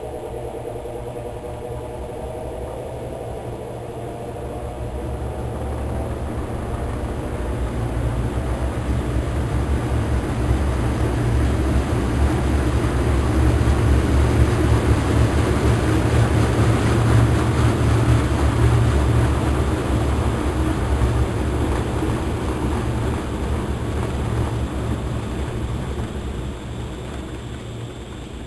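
Washing machine motor and drum straining in the spin cycle, a deep hum with a faint whine that rises in pitch near the start, growing louder through the first half and then easing off. The machine cannot pick up speed in the spin, its fault on rinse and spin.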